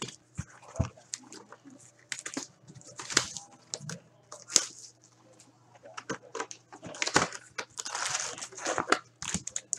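Cardboard hobby box of hockey cards being opened and its card packs handled: irregular crinkling, rustling and scraping of packaging, with a longer stretch of rustling near the end.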